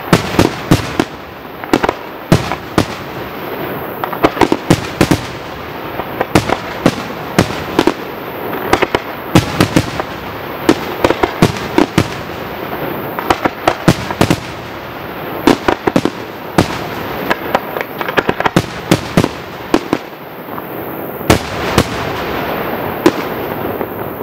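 Aerial firework shells bursting in rapid succession: sharp bangs, often several within a second, over a continuous noisy wash of further bursts.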